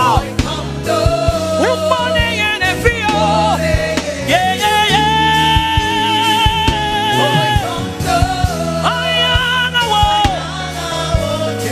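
Live gospel worship music: a solo female voice singing with vibrato over a band, holding one long note for about three seconds near the middle.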